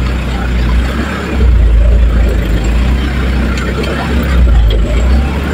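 Vehicle engine running with a deep, steady low rumble, heard from inside the cab while driving over a rough, rutted dirt road, with occasional light knocks. The rumble swells about a second and a half in.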